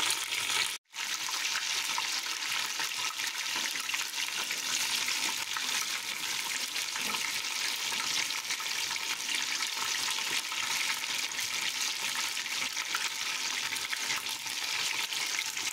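Batter-coated chicken pieces deep-frying in hot oil, a steady, dense sizzle and crackle. It breaks off for an instant just under a second in.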